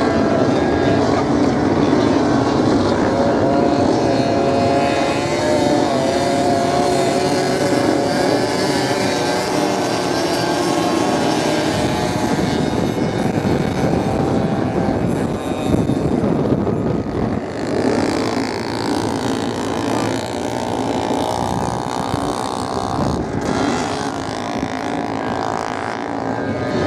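Several motorcycle engines running and revving as the bikes race over the sand, the pitch wavering up and down as they accelerate and ease off. The engines keep going the whole time, mixed into a steady rushing noise.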